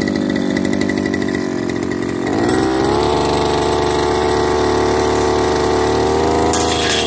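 Backpack brush cutter's small petrol engine running just after a pull start, wavering at idle, then revved up about two and a half seconds in and held at a steady cutting speed as the head goes into thick alang-alang grass.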